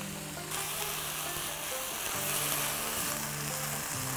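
Fresh fenugreek leaves sizzling in hot oil in a wok as they are stirred with a silicone spatula; the sizzle grows louder about half a second in. Soft background music underneath.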